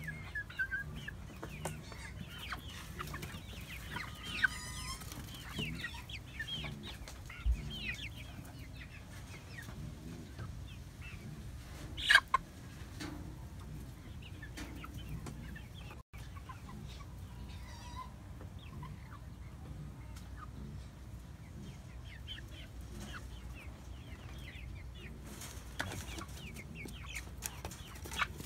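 A flock of young hens (pullets close to laying age) clucking and chattering in many short overlapping calls, with a brief loud sharp sound about twelve seconds in.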